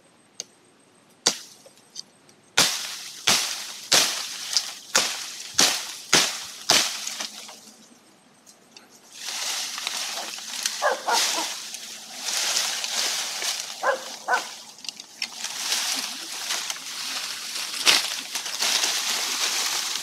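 Blade chopping into tree branches: about nine sharp strokes at an even pace of under a second apart. Then, after a pause, a long rustle of leafy branches being shaken and pulled through the foliage.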